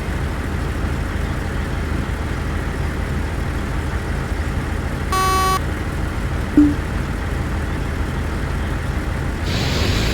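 Vehicle engine idling steadily, with a short beep about five seconds in and a brief blip about a second later.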